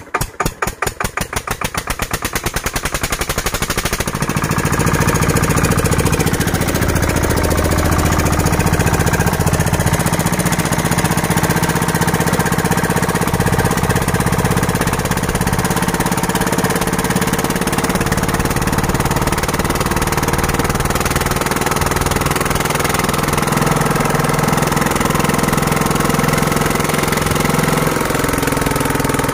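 Kirloskar 15 HP single-cylinder diesel engine catching after hand-cranking. Its firing beats speed up over the first few seconds, then it settles into loud, steady running at the high speed that is the fault to be fixed.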